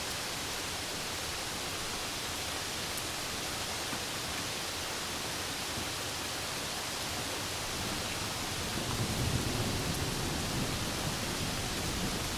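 Steady hiss of rain. About eight seconds in, a low rumble of distant thunder swells and then fades near the end.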